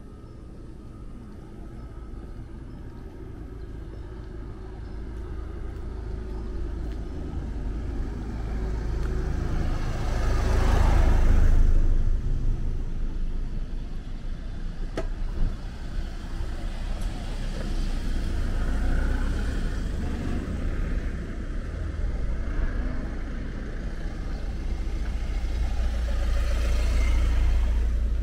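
Road traffic: a car or other motor vehicle passes close by about a third of the way in, its noise building and then fading, and another passes near the end, over a steady low rumble. A single short click sounds about halfway.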